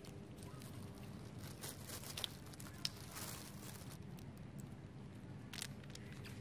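Long-tailed macaques cracking and crunching peanut shells: a few sharp cracks and crackles about two to three seconds in and once more near the end, over a faint steady hum.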